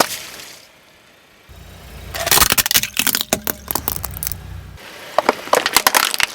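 A car tyre rolling over crunchy objects and crushing them: a dense run of crackling and snapping over the car's low hum, then more snaps near the end.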